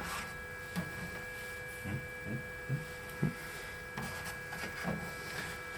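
Switched-on Flashforge 3D printer sitting idle with a steady electrical hum and a faint whine, with a few soft low knocks scattered through.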